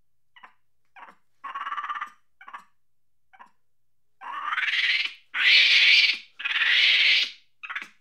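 Monkey chattering angrily: several short, separate calls, then three long, loud screeches in a row over the second half, the first rising in pitch.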